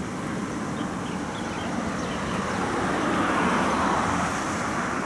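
City road traffic: a steady noise of vehicles on the street, swelling as one passes about three seconds in.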